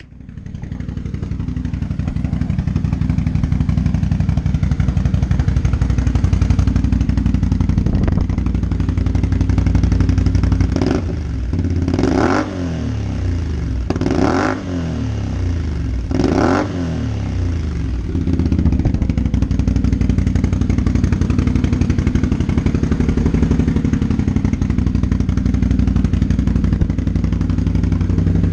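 Can-Am Renegade XMR 570 ATV's V-twin engine idling through a freshly fitted Yoshimura slip-on muffler, blipped up several times in quick succession partway through, then settling back to idle.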